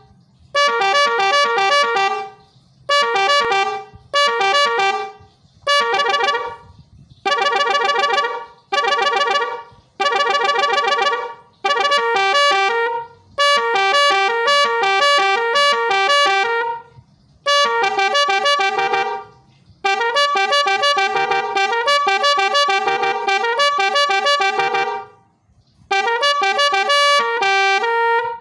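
Three-trumpet telolet horn playing its melodic multi-note tunes in a string of loud bursts, each a second or two long with short gaps between, and a longer run of notes in the second half.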